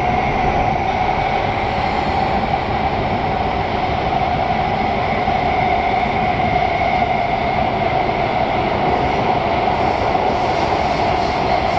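SMRT C151C metro train running through the tunnel, heard from inside the carriage: a steady rumble of wheels on track with a droning hum from the drive. Near the end a faint high hiss joins in.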